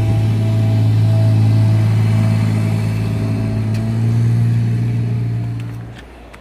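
An engine running steadily at a constant low pitch, swelling slightly and then cutting off about six seconds in.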